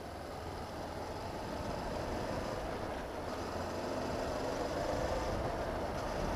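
Honda CB500X parallel-twin motorcycle engine running while riding, mixed with wind rushing over the helmet-side microphone, growing gradually louder.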